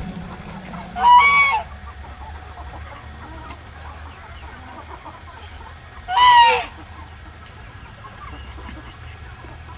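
Domestic poultry calling: two loud, short, arching calls about five seconds apart, over a faint low steady hum.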